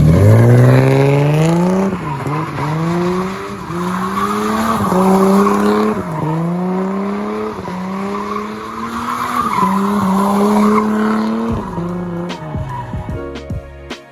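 Toyota Cressida's JZ inline-six revving hard while the rear tires spin and squeal, testing the freshly welded differential that locks both rear wheels together. The revs climb and drop back about six times, and the engine falls away near the end.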